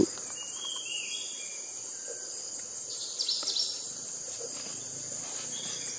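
Steady high-pitched chorus of insects, with a few short bird chirps about a second in.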